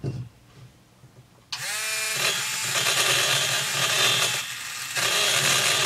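A few small handling clicks. About a second and a half in, an electric right-angle dental-lab handpiece spins up with a rising whine and then runs steadily, its carbide burr grinding at a port inside a two-stroke chainsaw cylinder.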